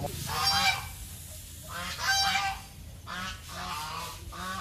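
Four short honking animal calls, the first two loudest, over a steady low hum.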